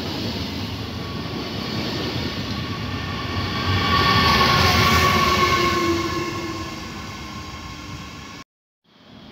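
Intercity 2 double-deck train with a Class 147.5 electric locomotive passing close by: a steady rumble of the coaches that is loudest as the locomotive goes past about four seconds in. A few steady whining tones from it sink slightly in pitch as it passes, then the sound fades and cuts off suddenly near the end.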